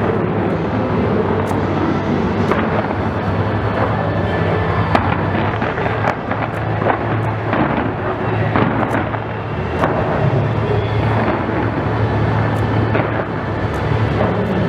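Fireworks going off in rapid succession: many sharp bangs and crackles over a continuous dense din.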